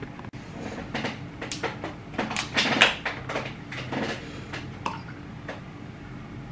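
Cardboard milk carton handled on a table, with clicks and rustles as its plastic screw cap is twisted off, loudest a little under halfway through, before the milk is poured into a glass.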